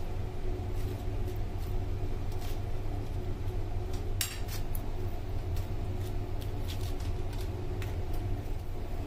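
Metal spoon clinking and scraping in a glass dish of tortilla chips while spreading minced meat, as scattered light clicks with one sharper clink about four seconds in, over a steady low hum.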